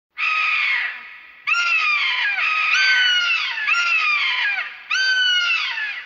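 Imagined pterodactyl screeches, a creature sound effect: about six harsh, loud calls in quick succession, each sliding down in pitch, with an echoing tail fading after the last.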